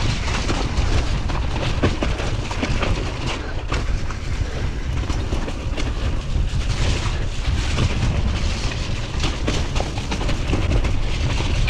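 Hardtail mountain bike descending a rough dirt trail at speed: continuous rattling and clatter from the bike over the bumps, with tyre noise on the dirt and wind rumbling on a chest-mounted camera close to the front wheel.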